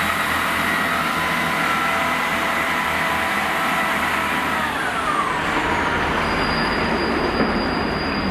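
Diesel multiple unit running past on the tracks: a steady engine and transmission whine over a low rumble, the whine falling in pitch as the rear car goes by about five seconds in. Near the end a thin, high, steady wheel squeal sets in.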